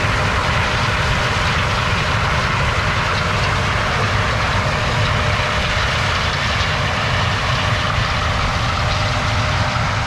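John Deere S780 combine harvesting corn: a steady, unbroken drone of engine and threshing machinery.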